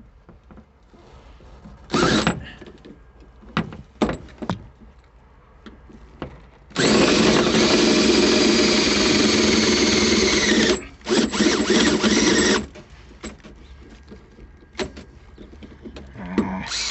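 Electric hand drill boring a bolt hole into the metal of a 1955 Chevy pickup for a seat belt mount: a short burst, then one steady run of about four seconds, then several short bursts.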